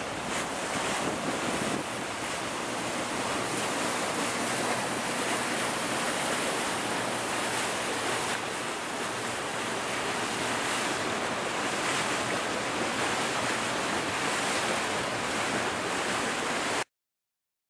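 Wind buffeting the microphone and water rushing past a moving motorboat, over a low, steady engine hum. It cuts off abruptly to silence about a second before the end.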